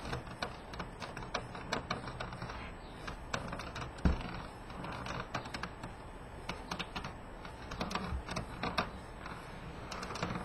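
A PS3's Blu-ray drive and console parts being lifted out and handled by hand after their screws are removed: irregular light clicks and taps, with one louder knock about four seconds in.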